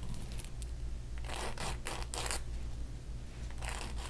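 Salon board (emery board) rasping along the edge of a small metal disc to smooth it. It goes in two quick runs of about three strokes each, one a little over a second in and one near the end.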